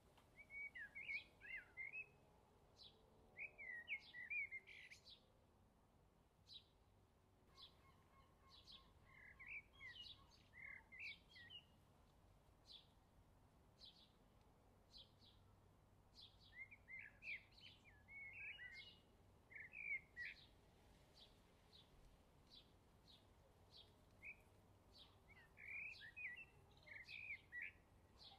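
Faint outdoor birdsong: short high chirps about once a second, with warbling song phrases every few seconds.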